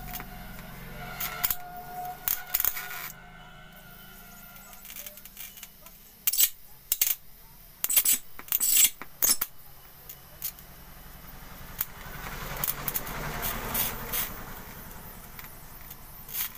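High-voltage arcing from a CRT TV's EHT anode cap held a short gap from the picture tube: irregular sharp spark snaps coming in clusters, with a stretch of denser crackle. The arcing is being used to 'charge' (rejuvenate) a weak picture tube without a tube charger.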